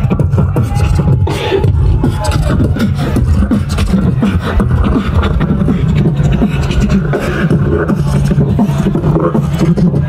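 Live beatboxing: a fast run of mouth-made drum strokes over a heavy, continuous bass.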